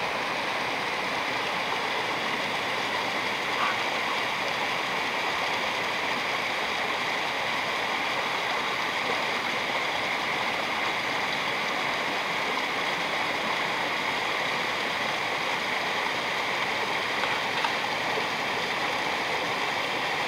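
Small upland stream running over rocks and a little cascade: a steady, even rush of water.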